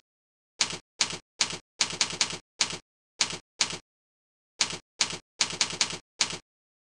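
Keyboard typing: single sharp key clicks, one per letter, in irregular runs of two to four a second, with a pause of about a second a little past halfway.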